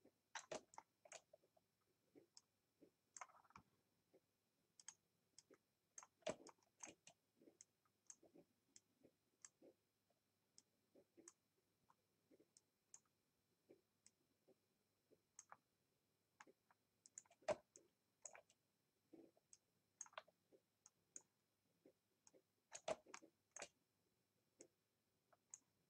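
Faint computer mouse clicks, single and irregular, about one or two a second, as anchor points are placed with a drawing program's pen tool.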